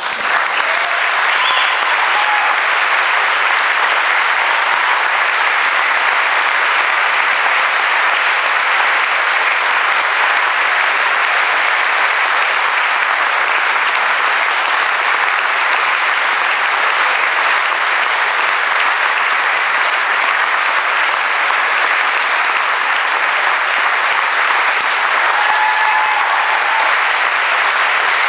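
Audience applauding, breaking out suddenly and then going on steadily.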